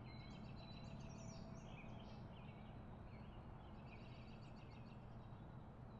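Near silence: low room hum with faint bird chirping throughout.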